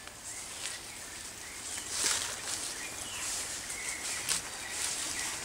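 Tropical forest ambience: a steady high hiss with faint short chirps, broken by brief rustles and clicks, the loudest rustle about two seconds in.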